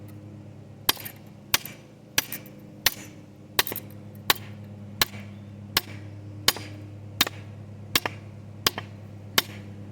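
Blacksmith hammer striking hot aluminum in steady, evenly spaced blows, about three every two seconds, thirteen in all, each a sharp hit with brief ringing, over a steady low hum.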